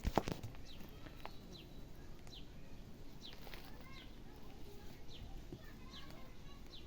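Small birds chirping outdoors, with short high calls that sweep downward and repeat every second or so. A few sharp knocks sound right at the start.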